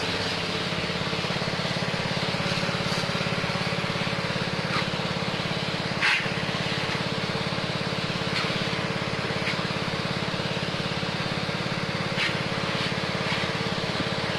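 Small engine of a high-pressure 'steam' washer, converted to run on LPG from a 3 kg gas cylinder, running steadily under load while the spray lance shoots a hissing jet of water. A few brief clicks are heard, the loudest about six seconds in.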